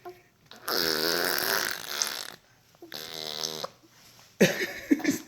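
Funny fart-like raspberry noises blown through the lips: two long buzzing blows, then a few short sputters near the end.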